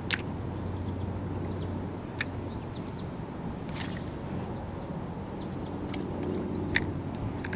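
Outdoor riverbank ambience: a steady low engine-like hum with faint bird chirps over it. A few sharp clicks, the loudest near the end, and a brief swish about four seconds in come from a spinning rod and reel being handled and cast.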